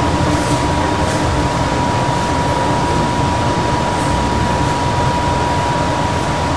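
Steady background noise: an even hiss and rumble with a constant thin high whine running through it.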